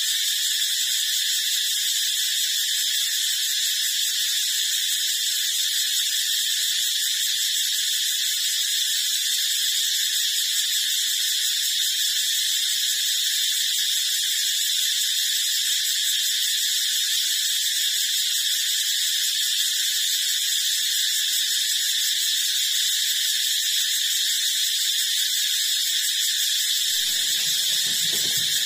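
A steady, high-pitched hiss that holds the same level and pitch throughout, with no rhythm or breaks. Near the end some faint low-pitched sound joins it.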